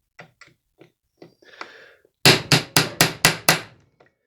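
Hammer blows on a hand impact driver, six sharp strikes in quick succession about four a second, to break loose a tight screw holding the chainsaw's oil pump. A few light metal clicks come before the blows.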